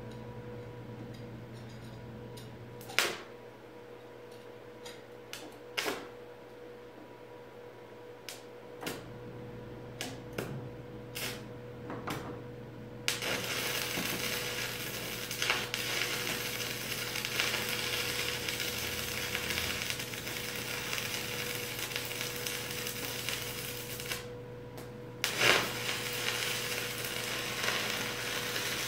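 Stick arc welder running a bead where a steel post meets a steel beam. Scattered sharp taps and clicks in the first dozen seconds, then the steady crackling sizzle of the arc from about halfway through. The arc breaks off briefly and restarts with a sharp crack near the end, over a steady low hum.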